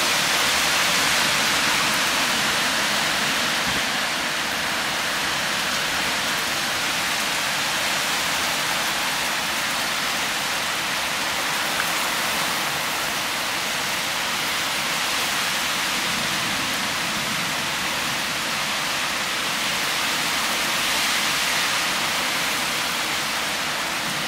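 Heavy rain pouring down steadily in a thunderstorm.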